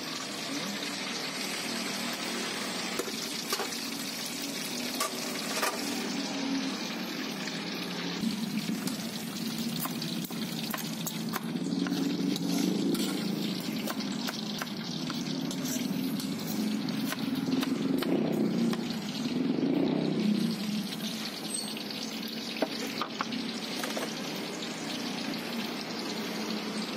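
Steady sizzle of frying oil, with scattered taps of a cleaver on a wooden cutting board. A low rumble swells and fades twice around the middle.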